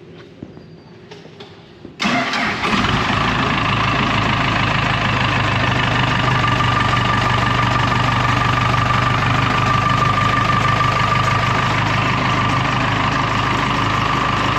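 Dressta TD-8H crawler dozer's diesel engine starting abruptly about two seconds in, then running steadily at idle.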